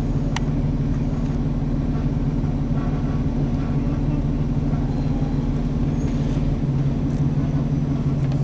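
Jeep engine idling steadily, a low even hum that shifts slightly in pitch about two-thirds of the way through.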